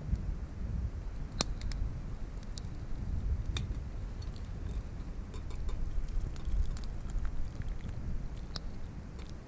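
Small campfire crackling with scattered sharp snaps, over a low, uneven rumble of wind on the microphone.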